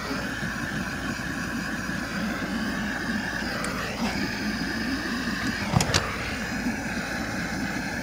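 Butane micro torch flame hissing steadily while it shrinks heat-shrink tubing over soldered wire joints, with two sharp clicks close together about six seconds in.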